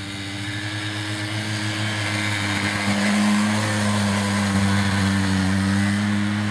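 Engine of a Keeway ATV 50 quad running at a steady pitch, growing louder over the first three seconds and then holding steady.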